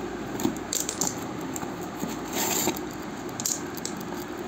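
A cardboard shipping box being handled and torn open by hand: irregular scraping and rustling with scattered clicks.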